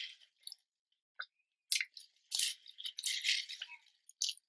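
Paper napkin crinkling and rustling in several short bursts as it is used to wipe the mouth and fingers, with a longer stretch of rustling in the middle.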